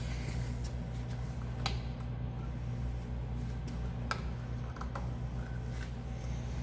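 A few light clicks and taps from a clamp and wooden block being adjusted on the drill press table, over a steady low hum.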